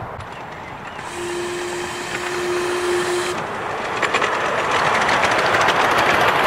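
A 7¼-inch gauge miniature steam locomotive: a steady whistle blows for about two seconds. The loco and its passenger train then come closer and louder, the wheels clicking over the rails.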